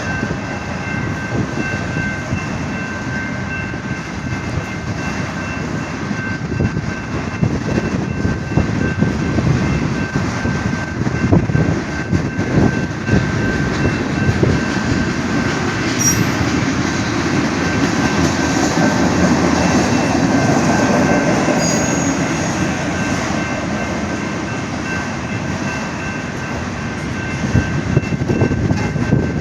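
Norfolk Southern freight train rolling slowly through a road crossing: low rumble and clatter of the cars' wheels over the rails, over a steady high ringing tone, louder in the middle with a brief high wheel squeal.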